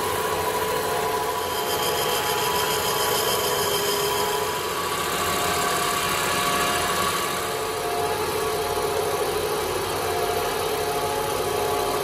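Cylindrical grinder's wheel grinding a spin-dryer motor rotor shaft under flowing coolant: a steady machine hum and grinding hiss with several held tones, and a higher whine from about one and a half to four and a half seconds in.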